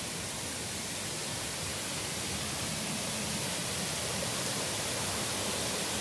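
Small waterfall pouring over a rock ledge into a shallow pool: a steady rush of falling water, a little louder in the second half. The stream is running high with early-spring water.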